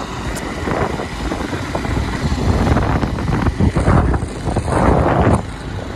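Motorcycle riding at road speed, its engine rumble mixed with wind buffeting the microphone, the gusts growing louder through the second half.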